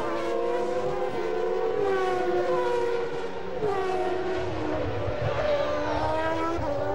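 1994 Formula One car engines running at high revs on track. The engine note slides down in pitch and jumps back up a few times, as the cars go through gear changes and corners.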